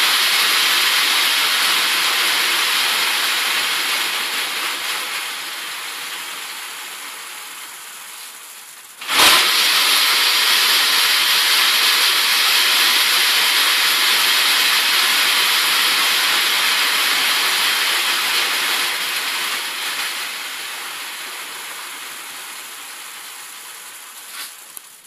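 Wooden slat belt of a dog slatmill spinning freely on its rollers, a steady rushing whir that fades as the belt coasts down. A sharp knock comes about nine seconds in, after which the whir is back at full loudness, then it slowly fades again toward the end. This is a free-spin test of how easily the mill runs.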